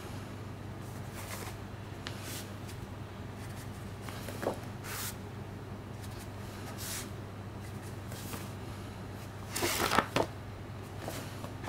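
Gloved hands handling a manga volume: soft rubs and rustles of its cover and pages, with the loudest handling noise about ten seconds in, over a steady low hum.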